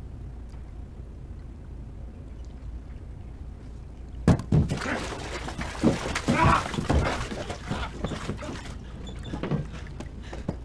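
Low steady room hum, then a heavy thump about four seconds in, followed by several more knocks and a few seconds of water splashing and sloshing in a bathtub that dies away near the end.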